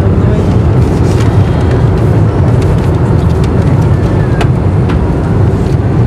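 Airliner cabin noise in flight: a loud, steady low rumble of engines and airflow, with a few faint clicks.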